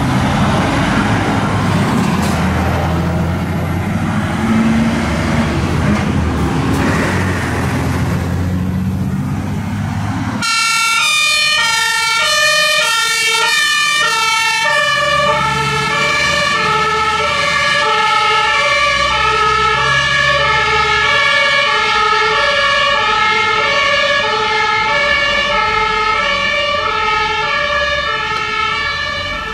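Heavy diesel fire trucks drive past with engines running. About a third of the way in it cuts sharply to a fire engine's two-tone siren, a German Martinshorn, steadily alternating between a high and a low tone over the engine noise.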